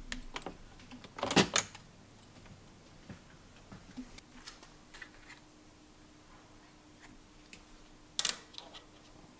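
Scattered clicks and knocks of hands handling cordless power tools and a fan's control knob, with a louder clatter about a second and a half in and a sharp click about eight seconds in. A faint steady hum runs through the second half.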